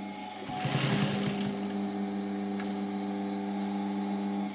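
Electric sewing machine running steadily, a constant hum with a few irregular light clicks, stitching leather onto a fur dummy.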